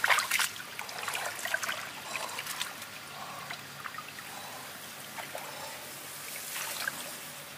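Shallow muddy water splashing and sloshing as hands churn through it, with a cluster of sharp splashes in the first couple of seconds, a quieter trickling in between, and a few more splashes near the end.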